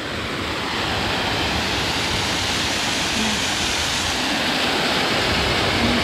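Small forest waterfall cascading over rocks: a steady, loud rush of falling water.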